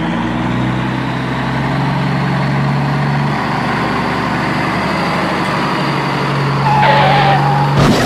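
A vehicle engine running steadily under a loud, even noise, with a low hum that steps in pitch a couple of times. Near the end a higher whine joins in, then the sound breaks off abruptly.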